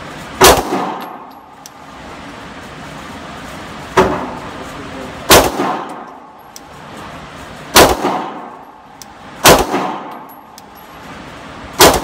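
Six pistol shots fired one at a time at uneven intervals, each loud crack trailing off in echo.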